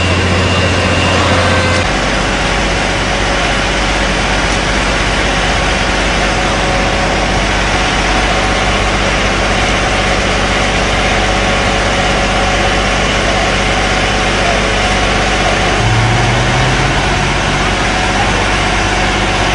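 A heavy truck engine running steadily at idle, with a steady low hum.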